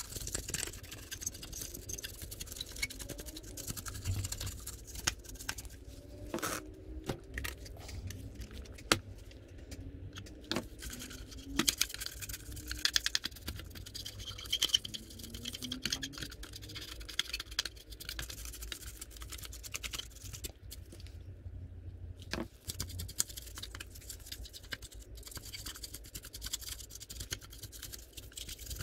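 A brush scrubbing weathering powder onto a plastic model tank: irregular dry scratching with many small clicks and taps.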